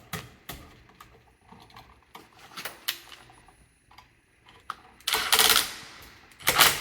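Scattered small clicks and ticks of electrical wires and a switch being handled at a wall switch box, then two louder scraping rustles near the end.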